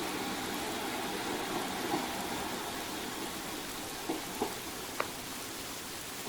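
Steady rain hiss under the fading diesel engine sound of a departing Class 156 Sprinter. A few sharp clicks come about four to five seconds in.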